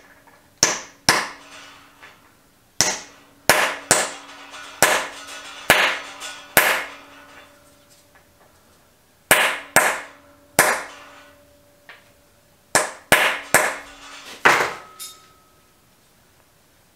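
Hammer blows on a steel drift driving a Keysert thread insert flush into an exhaust-manifold stud hole in an aluminium cylinder head. There are about fifteen sharp metallic strikes in uneven groups of two to four, each with a brief ring, the last one the loudest.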